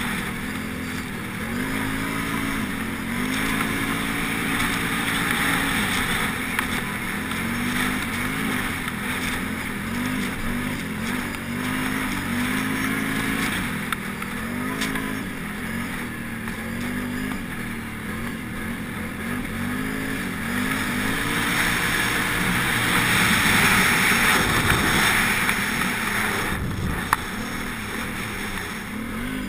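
Can-Am Renegade 800 ATV's V-twin engine running under way, its revs rising and falling over and over as the throttle is worked, with wind rushing over the handlebar-mounted camera's microphone. A few sharp clicks, the loudest near the end.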